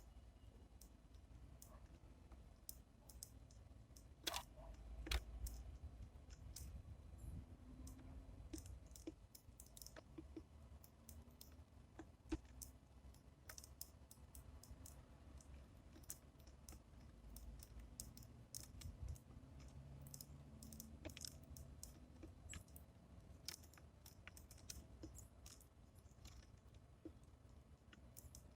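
Faint, irregular clicks and taps of sparrows pecking seed at a bird feeder, over a faint low rumble.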